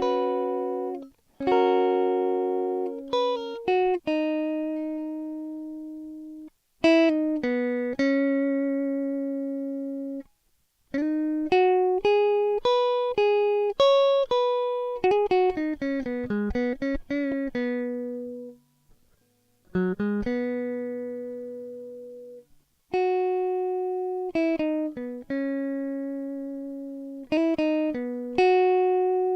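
Background music: a solo guitar plucking single notes and chords, each note ringing out and dying away, with a few brief pauses between phrases.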